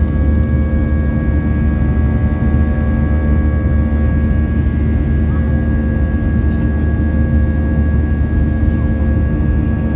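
Airbus A320 cabin noise in flight: a steady, loud rumble of engines and airflow with several steady engine tones over it.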